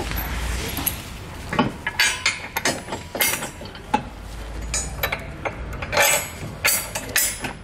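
Steel hex bolts and washers clinking and knocking against the steel brackets of a vehicle tow base plate as they are fitted by hand. It is a string of irregular, sharp metal clinks, about a dozen of them, over a low steady hum.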